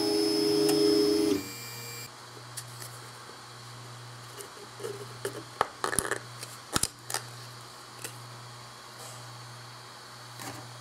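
Solidoodle 3D printer's stepper motors whining steadily as the print head moves, cutting off after about a second and a half, leaving a low steady hum. Around the middle come several sharp clicks and snaps as the printed plastic part is pried off the bed with a plastic card.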